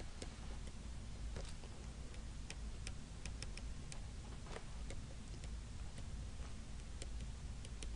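Faint, scattered clicks and taps of a pen working on a writing surface, about two a second at uneven spacing, over a steady low room hum.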